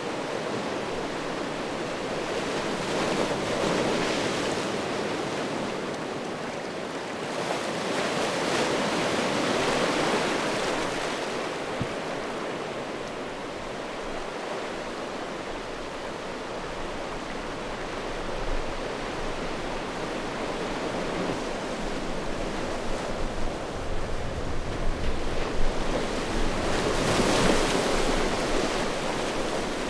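Small sea waves washing in over a rounded-cobble beach, the noise of the surf rising and falling in slow swells. It is loudest about four, nine and twenty-seven seconds in, with sharper splashes just before the last swell.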